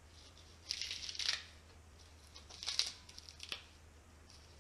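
Fresh kale leaves being torn and crumpled by hand and pushed into a blender jug, heard as a few short bursts of crinkling rustle: about a second in, again near three seconds, and once more briefly after that.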